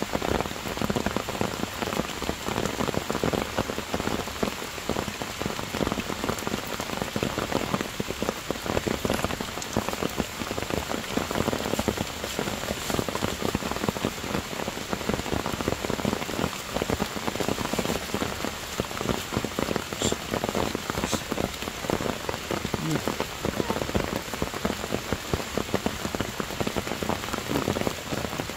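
Heavy rain falling on forest foliage and stones: a dense, steady patter of drops.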